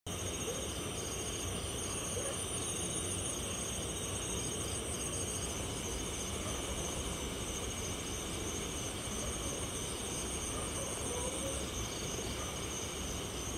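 Night insect chorus, crickets among them: several steady high-pitched trills layered together, one broken into rapid short pulses, over a low steady rumble.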